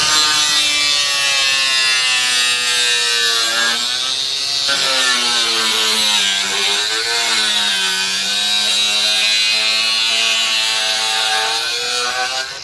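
Corded angle grinder with a cutoff wheel cutting through a stainless steel RV slide ski: a steady motor whine under a loud hissing screech from the cut, the pitch sagging and wavering as the wheel bites into the metal. It winds down near the end.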